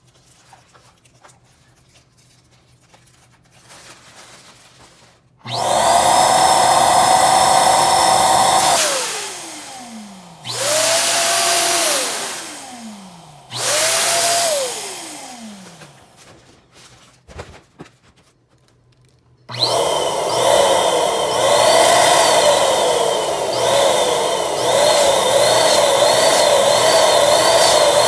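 Electric balloon pump switched on and off. It runs about three seconds, then gives two short bursts, and each time it winds down with falling pitch after switch-off. From about two-thirds of the way through it runs steadily with a wavering pitch while inflating a foil balloon.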